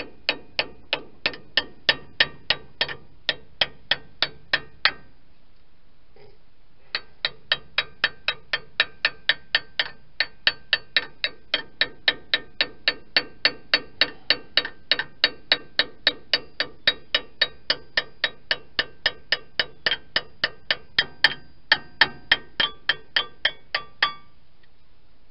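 Ratchet wrench clicking steadily on a brake caliper bolt, about three clicks a second, each with a short metallic ring. It pauses for about two seconds around five seconds in, then runs on until shortly before the end.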